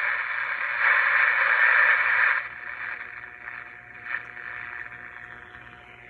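1962 Emerson 707 transistor radio playing static hiss through its small speaker, with no station coming in: a sign that the set is powered up and its audio stages are working. The hiss is loud, then drops sharply a little over two seconds in as the volume is turned down, leaving a faint hiss.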